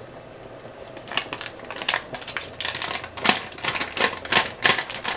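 Wrapper of a stick of butter crinkling as it is peeled open and the butter is pushed out into a frying pan, a run of irregular sharp crackles starting about a second in.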